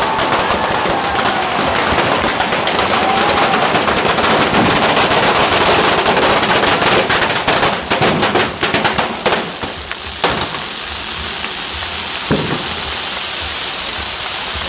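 A traca, a long string of firecrackers, going off in a rapid crackle like machine-gun fire as it sets the hoguera bonfire figure alight; after about nine seconds it thins to a few scattered bangs.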